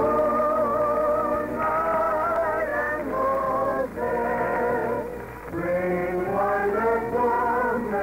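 Orchestral music from an old radio broadcast, with held notes rising and falling in a musical bridge. The sound is narrow and muffled, lacking high tones.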